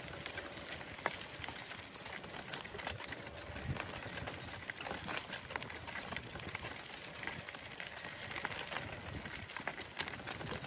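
Wheels rolling over a rough gravel dirt road: a steady rough rolling noise with many small irregular clicks and rattles.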